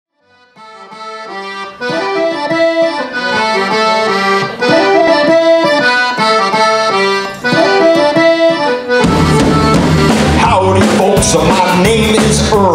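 Piano accordion playing a melodic intro on its own, fading in at the start. About nine seconds in the full band comes in with drums and bass under it.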